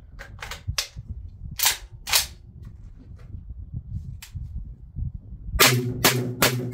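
Tokarev TT12 semi-automatic 12-gauge shotgun firing a string of shots. There are two loud shots about half a second apart near the two-second mark, then a faster run of loud shots near the end as the gun cycles the lighter loads.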